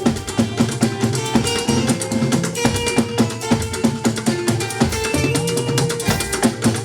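Band music for a church hymn: a drum kit and guitar keep a steady, busy beat with a bass line underneath.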